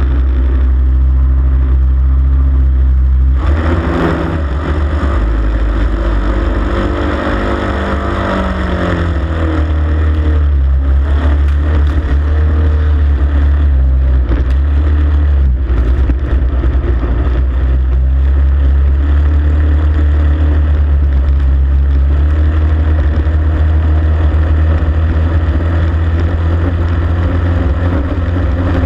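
Onboard sound of a racing hydroplane under way: its engine runs loud and steady, with the pitch rising and then falling back a few seconds in as the throttle changes, under a constant rush of spray.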